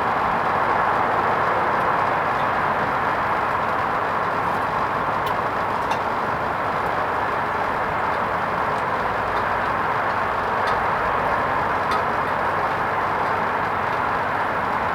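Hoover Vision HVP16 washing machine on its wool rinse programme, giving a steady rushing noise with a few faint clicks.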